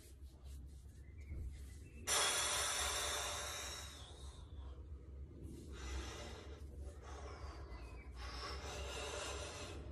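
A man breathing hard from the effort of lifting a weight plate: three long, forceful exhalations, the first and loudest starting suddenly about two seconds in and fading away.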